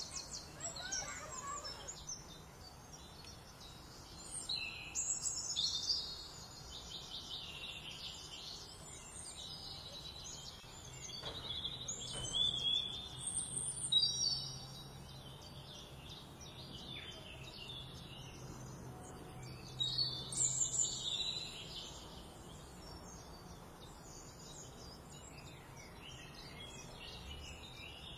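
Songbirds chirping and trilling in short bursts, several clusters a few seconds apart, over a faint steady outdoor background.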